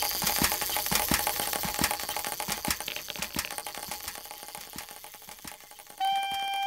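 Cartoon sound effect of a clockwork wind-up toy lobster walking: rapid mechanical clicking and whirring that slowly fades. Near the end a held musical note comes in.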